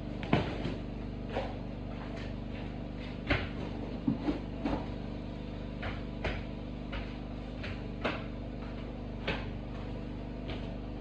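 Irregular knocks and taps from work on a room's floor, a sharp one every second or two, over a steady low hum.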